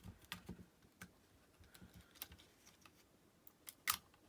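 Scattered light clicks and taps of small parts being handled while a Sony NW-1000 Walkman is taken apart to get its hard disk out, with a sharper click near the end.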